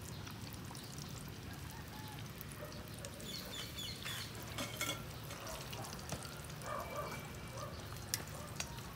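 Breaded chicken deep-frying in hot oil: a steady sizzle from the bubbling pan. The oil is hot enough that sprinkled breading bubbles straight away. Near the end there is one sharp tap as a spoon goes into the pan.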